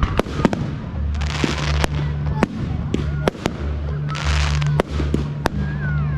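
Fireworks going off: a rapid, irregular string of sharp bangs from bursting shells, with several bursts of crackling hiss, over a steady low hum.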